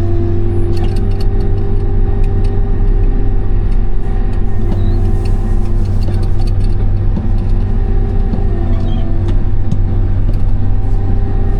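Case IH 8120 combine's engine running steadily, heard from inside the cab as a constant low drone with a steady hum, with scattered light clicks and rattles over it.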